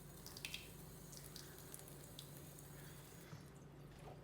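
Faint wet scraping of a kitchen knife blade stroked across a water-wetted 1000-grit whetstone, working up a slurry of mud on the stone, with a few light clicks.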